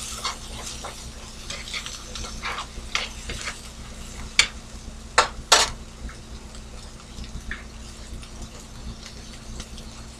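Sliced onions sizzling in a nonstick skillet while a spatula scrapes and taps against the pan, flipping them back and forth. There are a few sharp clacks about four to six seconds in, and after that only the steady sizzle.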